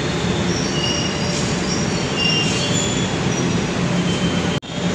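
Manila LRT Line 1 third-generation (3G) light rail trainset running past on the track. Its wheels make a steady rumble on the rails, with several short, high-pitched squeals. The sound breaks off abruptly near the end.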